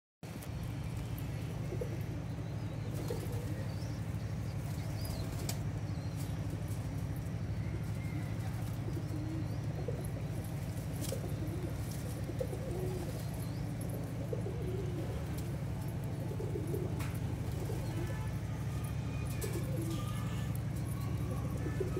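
A flock of domestic pigeons feeding: low, wavering cooing with occasional wing flaps and sharp pecking clicks on concrete, over a steady low hum.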